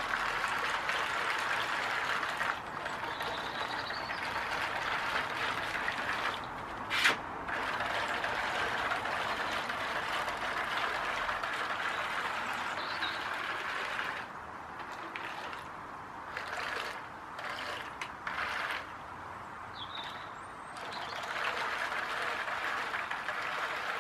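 Small electric drive motors of a homemade radio-controlled amphibious toy boat with wheels, running as it moves through shallow water, with a sharp click about seven seconds in. In the second half the motors run in short stop-start bursts, then run steadily again near the end.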